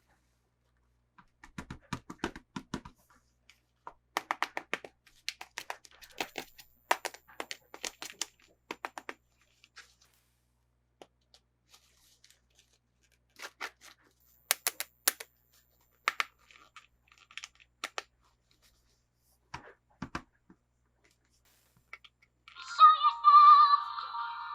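Toy packaging being handled and opened by hand: clusters of crisp clicks, crackles and small tearing sounds of plastic and card, dense at first and then sparse. Near the end a loud tuneful jingle starts.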